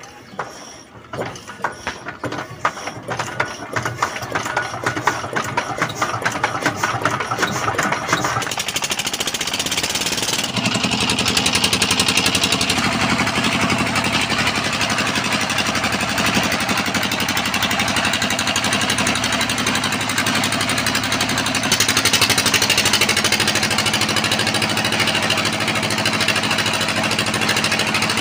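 Hand-cranked Petter single-cylinder diesel engine catching and picking up speed, its separate firing beats coming faster until it runs steadily. About ten seconds in, the belt-driven flour mill it powers starts up, adding a steady, louder grinding run.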